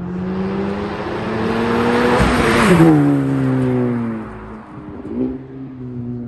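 Honda Civic Type R's turbocharged four-cylinder engine and aftermarket exhaust accelerating, the pitch climbing for about two and a half seconds before falling quickly as the revs drop, then running at lower revs with a brief rise about five seconds in.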